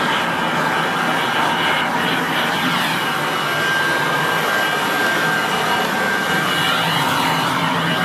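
1981 Kirby Heritage 1 upright vacuum cleaner running steadily: a continuous rush of motor and airflow noise with a thin high whine over it.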